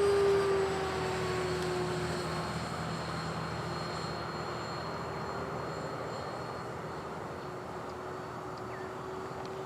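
E-flite Viper 70mm electric ducted-fan RC jet in flight: a steady fan whine. It is loudest at the start and drops slightly in pitch over the first two seconds, then holds steadier and a little quieter.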